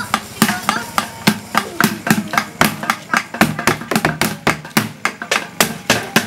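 Tongprek sahur percussion: sticks beating a steady, quick rhythm on an upturned plastic jerrycan and a plastic bucket.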